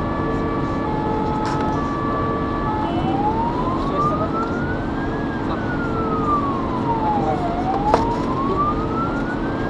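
Fire engine siren heard from inside the cab: a pattern of alternating steady tones switches about three seconds in to a slow wail that rises and falls roughly every four to five seconds, over the truck's steady engine drone. A sharp click comes near the end.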